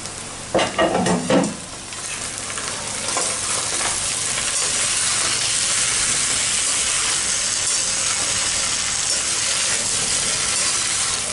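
Potato and onion sticks frying in hot mustard oil in a kadhai on high flame, a steady sizzle that swells over the first few seconds, with a metal spatula stirring and scraping through them. A short louder burst about a second in.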